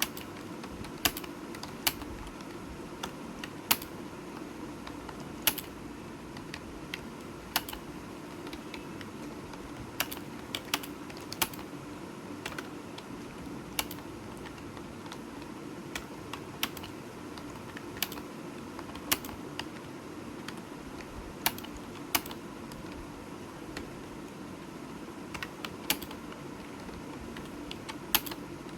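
Computer keyboard keystrokes: sharp clicks at an uneven pace, about one or two a second, over a steady background hum.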